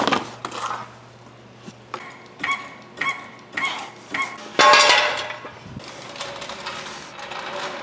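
Hydraulic floor jack being pumped with its long steel handle: five ringing metallic clinks about half a second apart, then a louder clatter of metal about halfway through.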